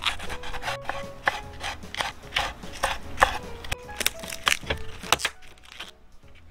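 Knife chopping on a wooden cutting board, with sharp strokes at about two or three a second that stop near the end.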